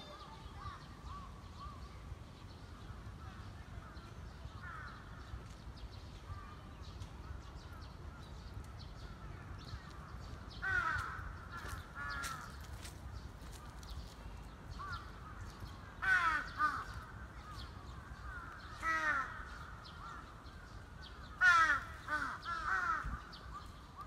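Crows cawing: short runs of harsh caws, a few at a time, growing louder and more frequent in the second half, over a steady low background rumble.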